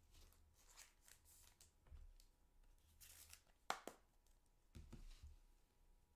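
Faint rustling, tearing and clicking of trading cards and their packaging being handled, with a sharp click a little past halfway.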